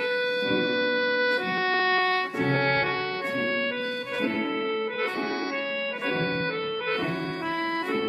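Instrumental karaoke backing music with no voice: a melody of held notes, changing pitch about every half second, over accompaniment.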